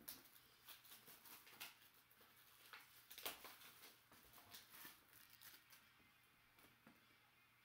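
Faint rustling and light taps of hands picking up and turning over a small cardboard trading-card box, strongest about three seconds in and dying away near the end.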